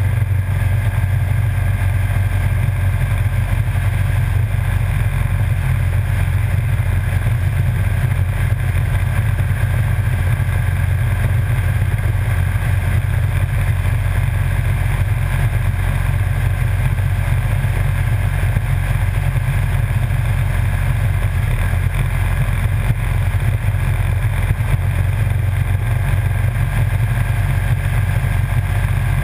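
Motorcycle cruising steadily at road speed: the engine runs with a constant low drone under a haze of wind and road noise, with no change in speed or revs.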